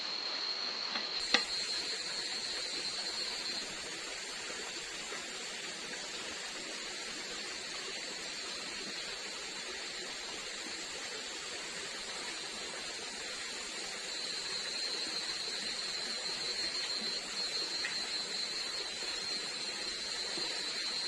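Forest ambience: an even hiss with a steady, high-pitched insect drone that fades for a while midway and then returns. A single sharp click about a second in.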